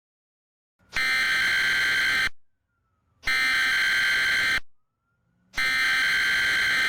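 Emergency Alert System SAME header: three harsh, buzzing digital data bursts of about a second and a half each, with a gap of about a second between them. It is the encoded header that opens a tornado warning broadcast.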